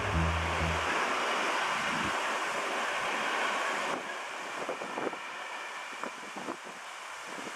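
A passenger train of a vintage diesel railcar set and coaches rolling past on the tracks. A steady rushing rolling noise drops away about four seconds in, followed by a string of sharp clacks from the wheels running over rail joints.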